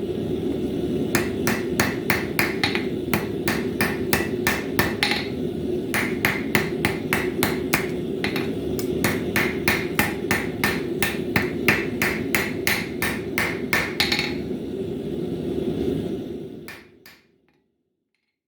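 Hand forging hammer striking a bar of 1075 high-carbon steel on an anvil in quick runs of blows, about three or four a second, with short pauses between runs. A steady low hum runs underneath, and everything fades out near the end.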